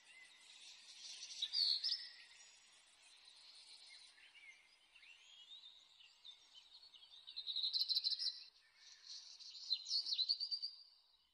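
Small birds chirping and singing, with quick trills that get louder about a second and a half in, again around eight seconds, and once more near the end.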